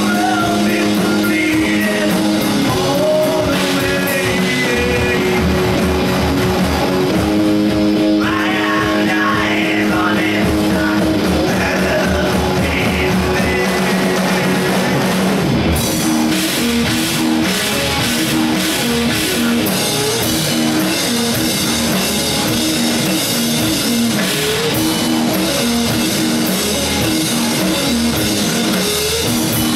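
Live rock band playing electric guitars and a drum kit. About halfway through, the music changes to a fuller, busier part.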